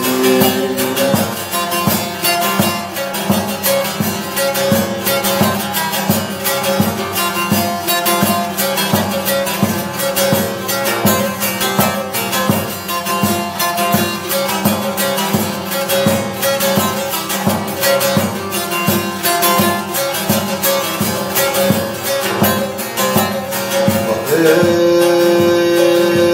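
Bağlama (Turkish long-necked lute) played fast with a plectrum, an instrumental passage of a Turkish folk tune: dense rapid picking over a steady ringing drone.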